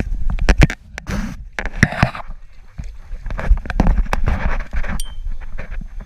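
Water splashing and sloshing around a kayak, with repeated sharp knocks and bumps. A steady low wind rumble sits on the microphone throughout.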